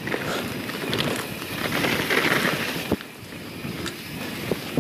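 YT Jeffsy 27 mountain bike rolling down a dirt singletrack: steady tyre noise on the dirt and wind rushing past the camera microphone. Two sharp knocks from the bike come about three seconds in and again near the end.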